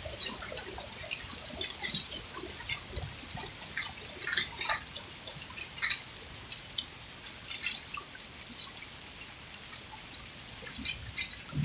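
Water dripping, with scattered drops tapping irregularly a few times a second over a faint steady hiss.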